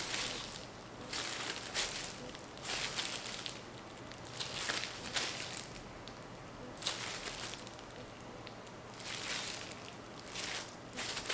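Disposable plastic food-prep gloves crinkling and rustling as hands knead and stretch sticky glutinous-rice mochi dough, in short irregular bursts about every second or two.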